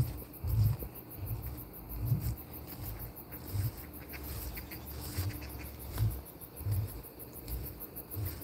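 Crickets chirping steadily in a fast, even pulse, with soft low thuds of footsteps on grass at walking pace.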